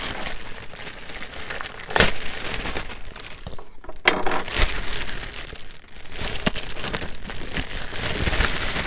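Thin clear plastic parts bag crinkling and rustling as it is torn open and handled, with sharp crackles about two and four seconds in.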